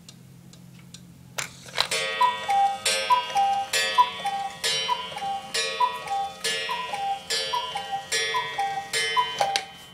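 Carved Black Forest-style cuckoo clock striking the hour after its hands are moved round: a click, then from about two seconds in a repeated two-note falling cuckoo call, about once a second, each call opening with a ringing strike.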